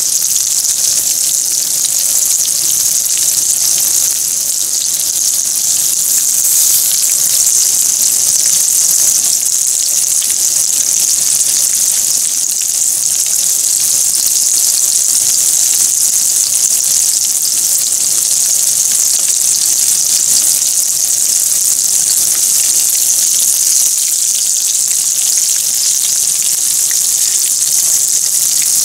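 Hot oil in a frying pan sizzling steadily around breaded cutlets as they shallow-fry: a dense, even hiss with fine crackling.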